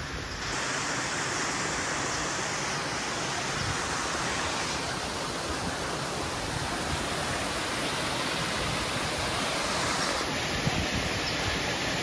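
Steady rushing noise of flowing water, with no distinct events; its tone changes slightly about half a second in and again near ten seconds in.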